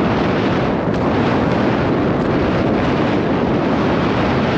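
Strong wind buffeting the camera microphone on an exposed mountain summit: a loud, steady rumbling rush.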